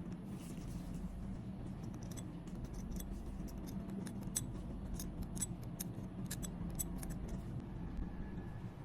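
Small metal dental instruments clicking and scraping, with many quick irregular clicks over a steady low hum.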